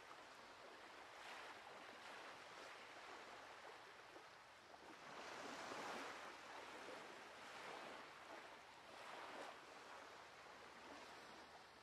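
Faint sea waves washing in, swelling and ebbing in soft surges a few seconds apart, the strongest around the middle.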